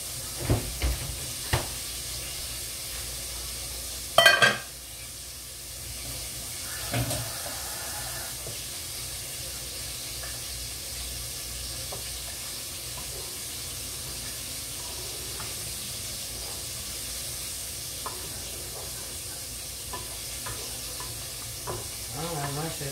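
Food sizzling steadily in a pot on the stove while it is stirred. A few short knocks come in the first couple of seconds, and a loud clatter of cookware about four seconds in.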